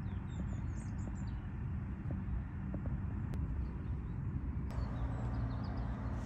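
Outdoor ambience: a steady low rumble with faint, brief bird chirps, a few in the first second and a few more near the end.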